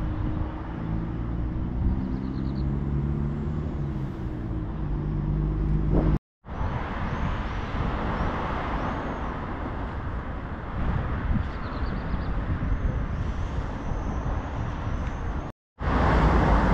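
Street traffic: a motor vehicle's engine runs close by with a low hum that drifts slightly in pitch for about six seconds. After an abrupt break, steady traffic noise follows, with small birds chirping high above it.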